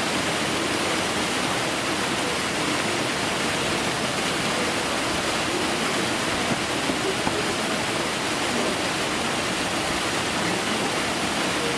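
Steady rushing of flowing water from the polar bear pool, even and unbroken.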